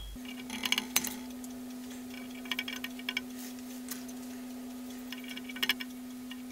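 Small metal clicks and taps in three short clusters as a hand works a small tool on the bolts of a 5-inch gauge model locomotive's metal frames, over a steady low hum.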